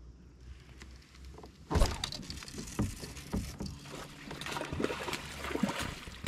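A hooked smallmouth bass thrashing and splashing at the surface beside a kayak while the angler cranks a baitcasting reel. The commotion starts suddenly about two seconds in and goes on as an irregular run of splashes and clicks.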